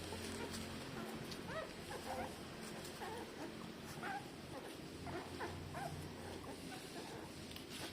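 Newborn puppies, about three days old, whimpering and squeaking in many short, high little cries. A low steady hum runs underneath.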